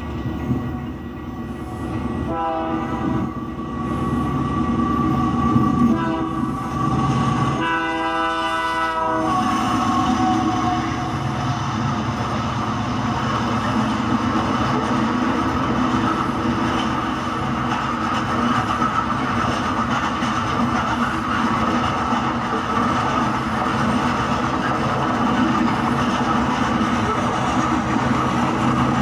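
Diesel train horn sounds three times, two short blasts and then a longer one of about a second and a half, over the steady rumble and clatter of a coal train's hopper cars rolling past.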